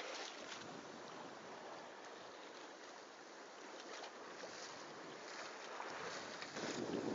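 Water rushing along a sailboat's hull with wind on the microphone, a steady hiss that swells near the end.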